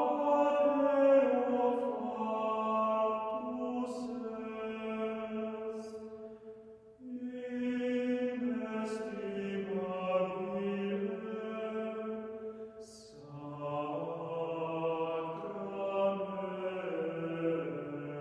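Chamber choir singing slow, held chant-like phrases, with a brief break about seven seconds in and lower voices joining about thirteen seconds in.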